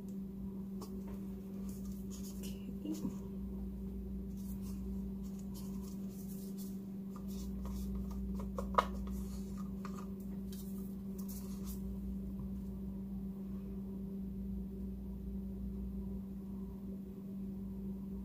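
Gloved hands handling plastic paint cups over a canvas: faint rustling and light clicks during the first twelve seconds or so, with one sharp tap just under halfway through, over a steady electrical hum.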